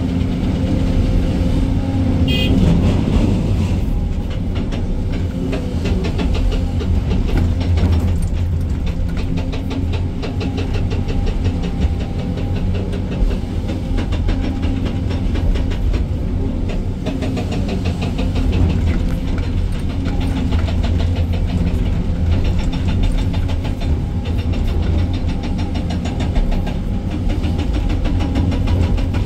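SANY 305 excavator's diesel engine running steadily, heard from inside the operator's cab, with a fast rhythmic clatter coming and going.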